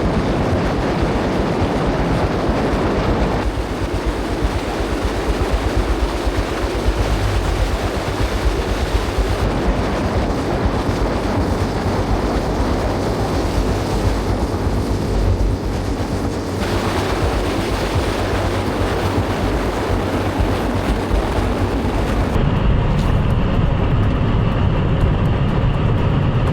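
Electric car running flat out on a half-mile run at around 200 mph: a loud, steady rush of wind and road noise with no engine note, changing in tone several times.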